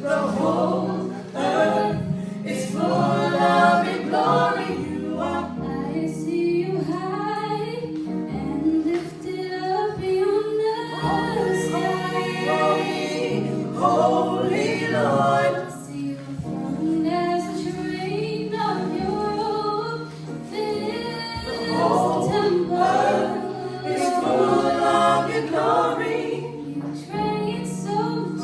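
A gospel choir singing in harmony, with voices rising and falling in phrases over a sustained low accompaniment.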